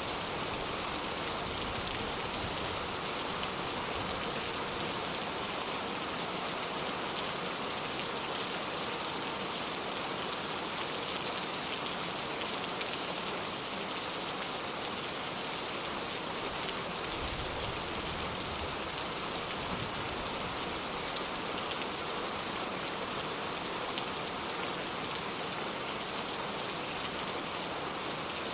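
Steady rain falling: an even hiss of water with many small, fine drop ticks.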